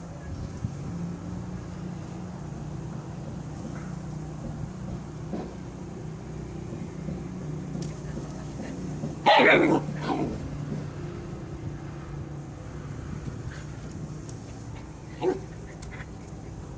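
Husky puppy barking during play with a cat: one loud bark just past halfway, followed at once by a smaller one, and a short yip near the end, over a steady low hum.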